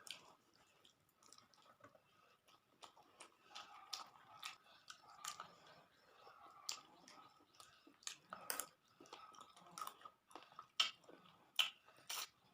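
Close-miked chewing of rice and fish curry, faint and wet, with many short mouth clicks and smacks. The loudest smacks come in the last few seconds.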